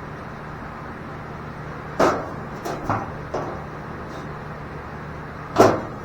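A few sharp knocks and clatters over a steady low hum: a cluster about two seconds in, then a single louder knock near the end.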